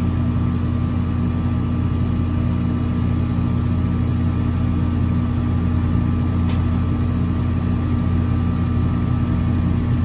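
Central air conditioner's outdoor condensing unit running on R-410A, its compressor and condenser fan giving a steady hum. The system reads very high superheat and very low subcooling: slightly undercharged.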